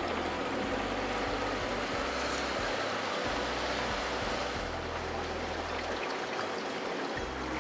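Steady rushing water noise.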